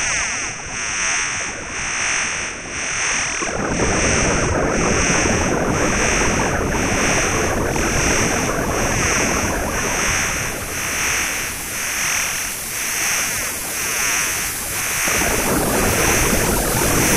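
Electronic experimental soundtrack: a high, even pulsing about twice a second over a wash of hiss-like noise. The noise switches on suddenly a few seconds in, drops out briefly near the end and comes straight back.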